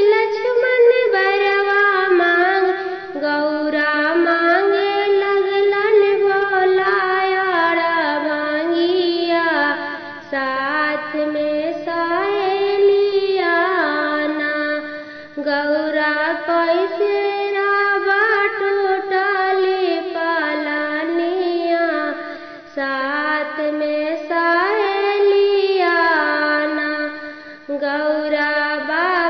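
A woman singing a traditional Bhojpuri Teej vrat folk song (lok geet) in long, gliding melodic phrases, with short breaks between the phrases.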